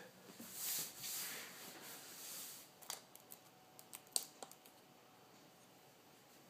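Handling noise: soft rustling for about two seconds as the quadcopter and gear are picked up and moved, followed by a few light plastic clicks.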